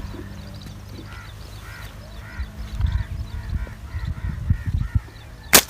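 A bird giving a run of short, harsh calls, about two a second, with low handling thumps. A single sharp click comes near the end.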